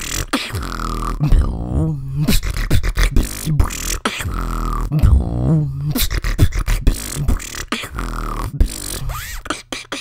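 A solo beatbox routine: sharp kick and snare hits over a deep, wobbling vocal bass line, with a gliding mid-pitched tone that comes back every few seconds.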